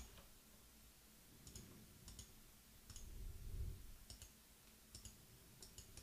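Computer mouse button clicked about seven times, faintly, each click a quick press-and-release pair. A soft low rumble sits a little past halfway.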